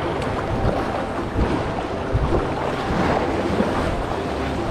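Sea water sloshing and splashing against the rock walls of a sea cave, a steady wash of surf with wind buffeting the microphone.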